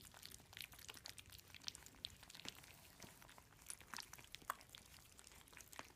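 Faint, irregular wet smacking and clicking of puppies eating their first solid food.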